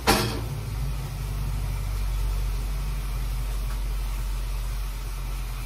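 A steady low motor drone. A short scrubbing stroke on the wet tabletop is heard right at the start.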